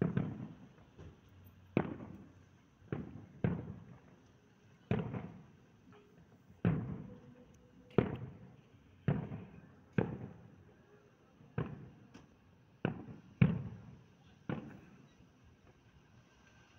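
Aerial firework shells bursting one after another, about a dozen booms at uneven intervals, each dying away in a rolling echo.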